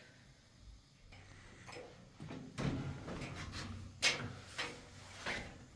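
A door being opened, with rustling and a few sharp clicks and knocks as someone comes in.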